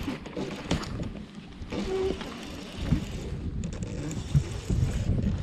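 Wind buffeting the microphone on a fishing boat, with scattered knocks and thumps of gear being handled on deck, the sharpest about three seconds in and again a little later.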